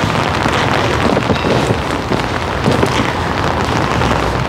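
Steady rain falling on an umbrella held overhead and on wet paving: a dense, even hiss full of small drop ticks.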